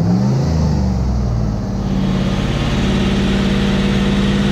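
Car engine idling steadily with the hood open, running cleanly now that its exhaust leak has been repaired. The pitch shifts briefly in the first second, then settles, and more of the engine's clatter comes through from about two seconds in.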